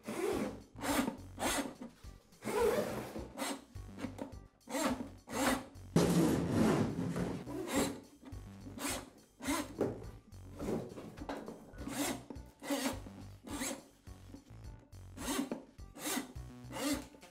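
3/8-inch wound steel drain cable being pulled hand over hand into the drum of a Ridgid drain auger: a regular series of scraping rubs, one with each pull, about one every three-quarters of a second.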